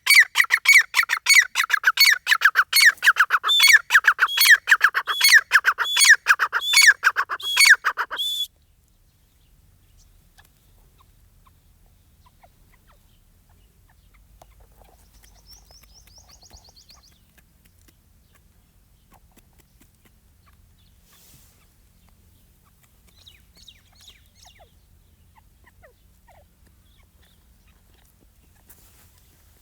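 Young francolin (teetar partridge) calling loudly in a fast, steady series of repeated sharp notes, about three a second. The calling cuts off abruptly about eight seconds in. After that only faint background remains, with a few faint distant bird chirps.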